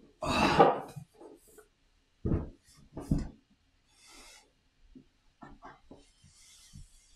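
A person coughing three times: one loud cough near the start, then two shorter ones. Soft rustling and light taps of a cardboard game box being handled follow.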